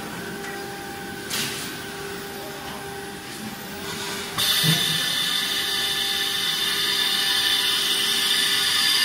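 Automatic-loading CNC router running: a steady machine hum with a few faint held tones and a brief knock about a second and a half in. About four and a half seconds in, a louder high-pitched hissing whine cuts in suddenly and holds.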